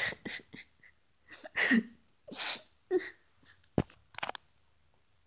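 A child's voice fake-crying: short breathy sobs and sniffles in bursts, one with a falling whimper about a third of the way in. A sharp click and a few smaller clicks come after the middle.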